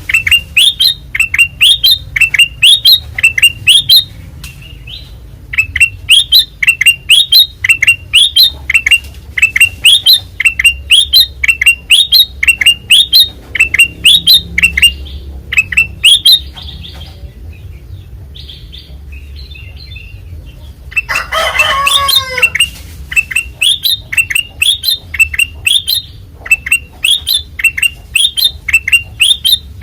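Kutilang emas bulbul singing in fast runs of short, bright, upward-sweeping whistled notes, about two a second. The runs break off for a few seconds past the middle, then one louder harsh call comes before the runs resume.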